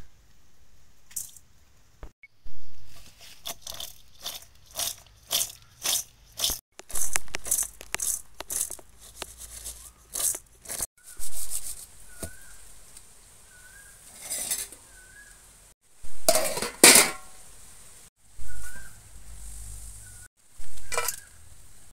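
A hand mixing salted diced cucumber in a stainless steel bowl: a quick run of short scraping, crunching strokes of the pieces against the steel. In the second half come a few louder clatters of steel dishes.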